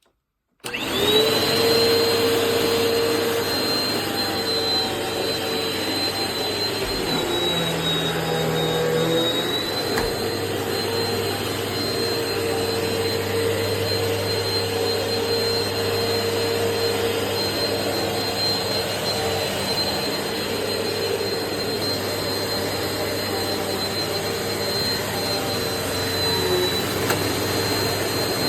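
Eureka PowerSpeed NEU181A bagless upright vacuum cleaner switched on about half a second in and running steadily, its motor giving a high whine that dips slightly in pitch a couple of times.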